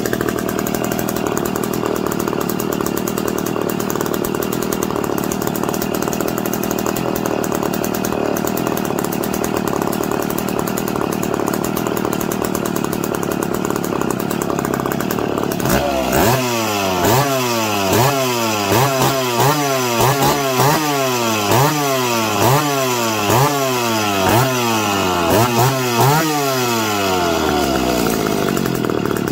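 McCulloch PM 700 two-stroke chainsaw engine running steadily with its bar and chain off. About sixteen seconds in, it is revved in a quick run of throttle blips, one to two a second, each rev falling away. Near the end it settles back to steady running.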